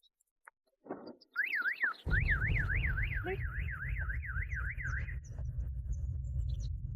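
Electronic siren warbling up and down in pitch about three to four times a second for roughly four seconds, then cutting off. A steady low rumble comes in about two seconds in and carries on.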